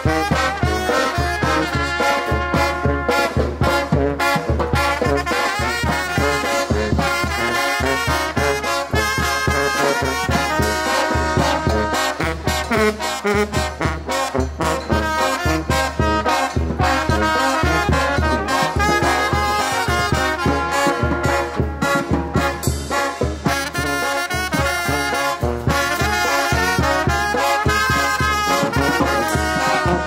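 Mexican brass banda playing a cumbia, with trombones and trumpets carrying the melody over a steady, evenly pulsing low beat.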